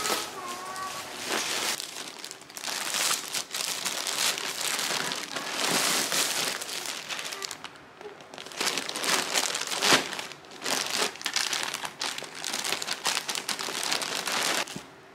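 Plastic packaging crinkling and rustling as a parcel wrapped in plastic bags and tape is torn open and a blanket in a clear plastic bag is pulled out and handled. The crinkling comes in uneven waves, eases briefly about eight seconds in, and stops just before the end.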